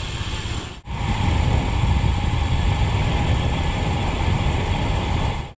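Wind rushing over the microphone of a road bike descending at speed, a dense steady rumble with road noise. It drops out briefly just under a second in.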